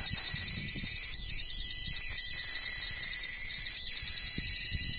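Home-built Don Smith high-voltage coil circuit running, its spark gap and power inverter giving a steady high-pitched electrical hiss and whine with thin constant tones, over a low rumble.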